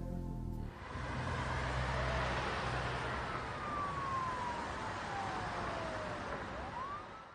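Rushing whoosh sound effect under the animated title cards, with a thin tone that slowly falls and then sweeps sharply back up just before it cuts off. The music ends under a second in, where the effect begins.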